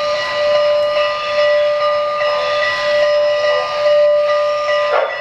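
Steam-whistle sound from the onboard sound system of an O-gauge model of a Norfolk & Western class J Northern locomotive, held long and steady as a chord of several notes, rising and falling in level about once a second.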